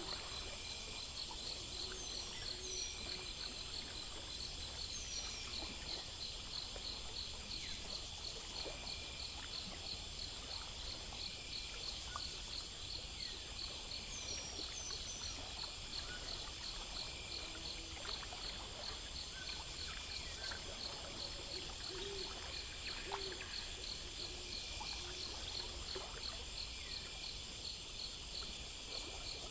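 Night-time insect chorus: crickets chirping in a steady, even pulse with higher insects trilling over them, a few short falling bird chirps and occasional low calls.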